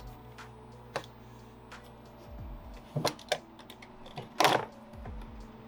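Scattered clicks and knocks of hand work on a car's plastic inner fender liner, the loudest a short scraping burst about four and a half seconds in, over a steady low hum.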